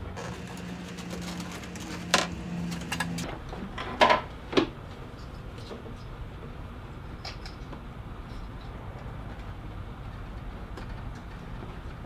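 Plastic automotive electrical connectors being pushed into their sockets, giving a few sharp plastic clicks about two and four seconds in, the loudest near four seconds, then faint handling ticks. A low steady hum runs under the first three seconds.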